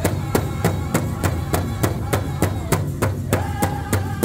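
Powwow drum group beating a large shared hand drum in a fast, even beat, about four strokes a second, with men's voices singing high held notes over it, strongest near the end.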